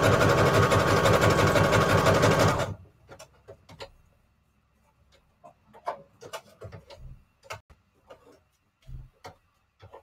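Electric sewing machine stitching through layered paper scraps with a short stitch, running fast and steadily before stopping abruptly about three seconds in. Scattered light clicks and taps follow as the paper is handled at the machine.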